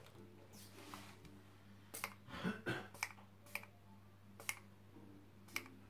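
Light, irregular taps and clicks, about eight in all, as blue paint is dabbed from a small applicator onto a soft homemade gelatin printing plate on a plastic sheet.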